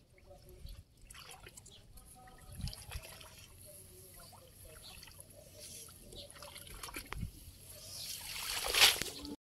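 Water trickling and splashing off a wet fishing net as it is hauled out of shallow water by hand, with a louder rush of water streaming off the net near the end.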